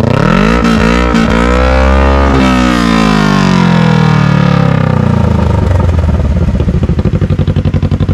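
Kawasaki KRX 1000's 999 cc parallel-twin engine, breathing through a catless RPM SXS stainless slip-on sport muffler, revved from idle. The revs climb over about two seconds with a couple of brief dips, then fall slowly back to a loud, pulsing idle about five seconds in.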